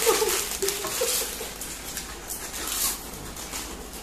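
Plastic chip packets crinkling and rustling as they are torn open, with chips being crunched, and a few short pitched vocal sounds in the first second or so.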